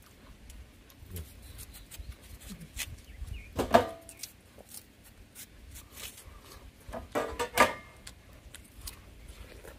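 Eating watermelon: soft clicks of chewing and lip-smacking throughout, with two louder short mouth sounds, one about four seconds in and another near the eight-second mark.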